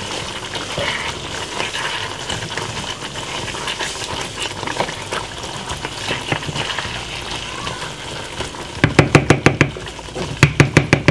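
Red onions in red wine gravy sizzling and bubbling in a small saucepan as they are stirred with a wooden spoon, with small scrapes of the spoon against the pan. Near the end, two quick runs of sharp taps as the wooden spoon is knocked against the saucepan.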